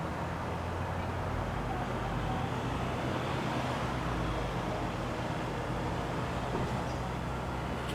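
Steady low rumble with a hiss, even throughout, with no separate events.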